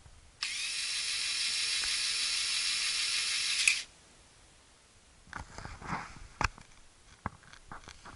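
Lego Technic cargo plane's battery-driven electric motor whining through its plastic gears for about three seconds as it lowers the rear cargo ramp, then stopping abruptly. A few plastic clicks and knocks follow.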